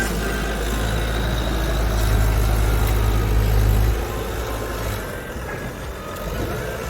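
Skid steer engine running with a heavy low rumble, dropping to a quieter run about four seconds in.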